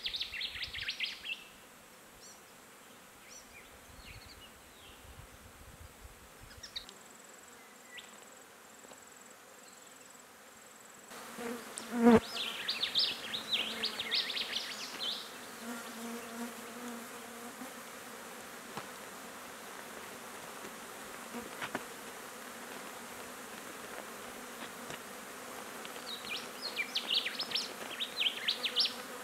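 Flies buzzing around a roadkill wombat carcass, with bursts of high, fluttering chirps now and then. A single sharp knock about twelve seconds in is the loudest sound.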